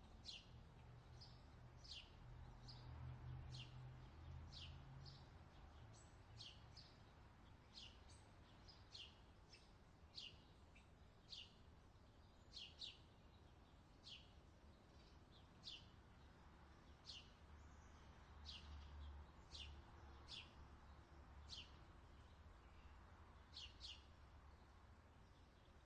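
A bird repeating short, high chirps that slide downward, about one a second and sometimes two in quick succession. They are faint, over a low steady rumble.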